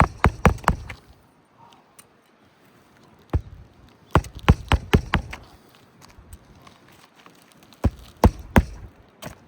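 Hammer driving roofing nails into an asphalt shingle: sharp strikes in short bursts of a few quick blows, with pauses between.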